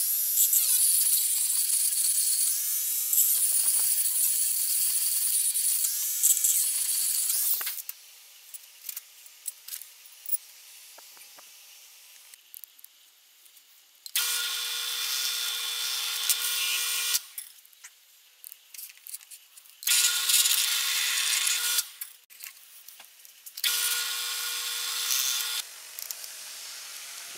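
A hand-held rotary tool grinds the steel of a hatchet for about eight seconds with a loud, high-pitched whine. Later a drill press runs three times, two to three seconds each, its motor giving a steady hum under the high-pitched noise of the bit drilling into the steel hatchet.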